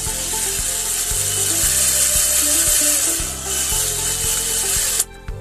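Cordless drill boring a hole through the fan heater's plastic housing, running steadily and stopping suddenly about five seconds in.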